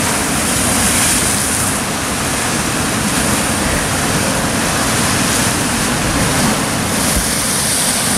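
Heavy sea surf breaking over a rocky lava shoreline: a loud, steady rush of churning, foaming water.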